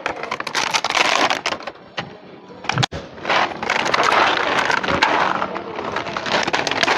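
A cat crunching dry kibble from a thin plastic tray, a dense run of crackling and clicking, with the plastic tray rattling under its mouth. The sound breaks off briefly a little before halfway and then picks up again.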